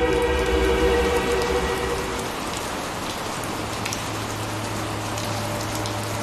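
Sustained music tones fade out over the first two seconds, leaving a steady hiss of falling rain with scattered drop ticks and a low steady hum underneath.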